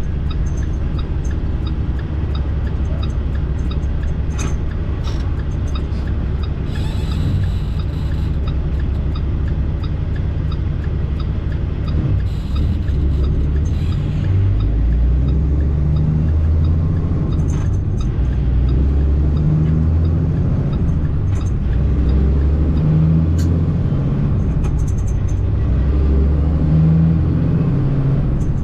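International ProStar semi-truck's diesel engine and road rumble inside the cab, a steady low drone whose pitch changes in steps in the second half, with two brief hisses early on.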